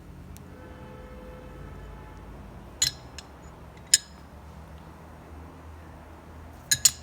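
Small metal parts clinking against hard metal: two sharp, ringing clinks about three and four seconds in, then a quick double clink near the end.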